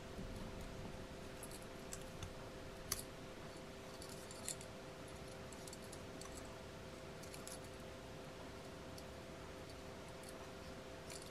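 Light metal clicks and clinks of a stainless steel folding camping utensil set being handled, its fork and spoon pieces clicking against the handle; the sharpest click comes about three seconds in, with another about a second and a half later.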